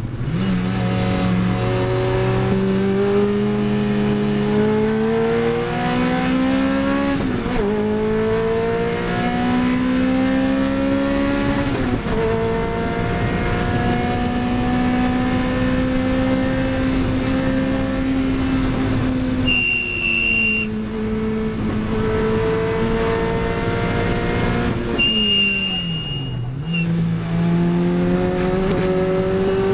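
In-cabin sound of a Lotus Elise 111R's four-cylinder engine under hard acceleration. The revs climb and drop at two upshifts in the first twelve seconds, then hold high, fall away under braking and climb again near the end. A brief, steady, high-pitched tyre squeal sounds twice as it slows.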